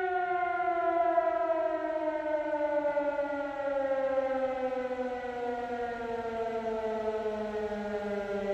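Air-raid siren wailing, its pitch sliding slowly and steadily down.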